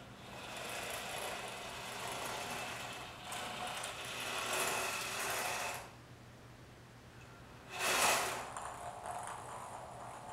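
Small hobby robot car's DC gear motors whirring as it drives over a hardwood floor, its speed set by PWM from a game controller's joysticks. The whirring runs for about six seconds, drops away, then comes back as a short louder burst near eight seconds followed by a thinner high whine.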